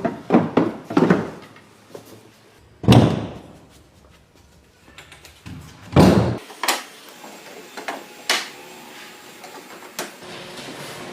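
A series of knocks and thumps: several quick ones at the start, two loud ones about three seconds apart, then a few lighter ones.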